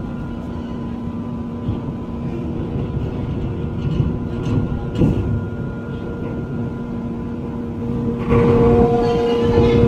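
Ferry engines running with a steady low rumble and a constant hum, with a few knocks. About eight seconds in, the sound grows louder and a strong steady tone joins it.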